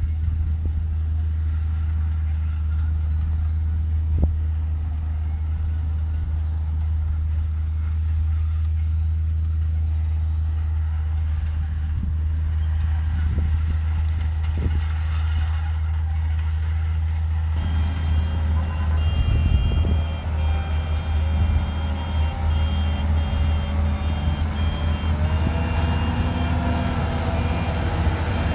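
Small Komatsu bulldozer's diesel engine running steadily as it pushes soil. About two-thirds of the way in, a dump truck's reversing beeper starts up with evenly pulsed beeps over the truck's engine as it backs in to unload.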